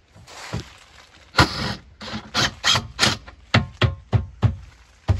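Cordless drill driving screws into the wooden speaker box, a short run and then a louder burst, followed by a series of sharp knocks about three a second.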